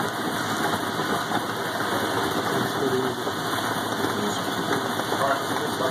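Bingo machine's ball blower running steadily, an even whirr with a busy rattle in it.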